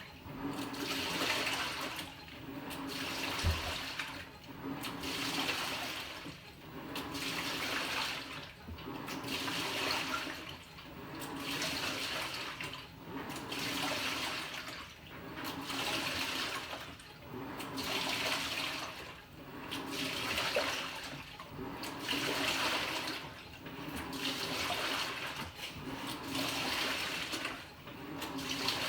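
Panasonic NA-FA100H9 top-loading washing machine agitating its load: water sloshing in swells about every two seconds as the drum's pulsator drives the water one way and then the other, over a steady low motor hum.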